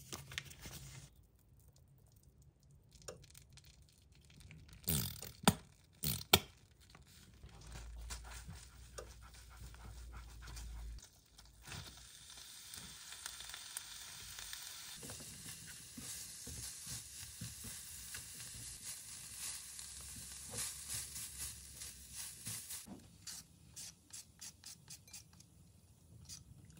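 Butter and then shredded cooked chicken breast sizzling and being stirred in a frying pan, after a few sharp knocks of the pan or utensils. Near the end comes a quick run of short rasping strokes as a carrot is shredded.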